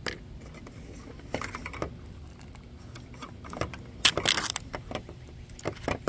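Small cardboard and plastic miniature toy boxes clicking and tapping on a tabletop as they are handled and set down, then a loud crinkling rustle of a printed wrapper being torn open about four seconds in.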